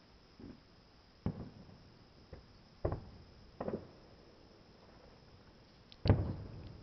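Distant aerial fireworks shells bursting about two miles away: a string of separate dull booms, several a few seconds apart, with the loudest about six seconds in, trailing off briefly.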